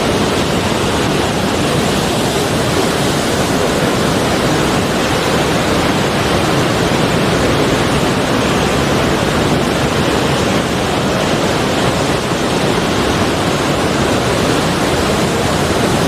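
Sea waves washing in a continuous, even roar, with no separate breakers standing out.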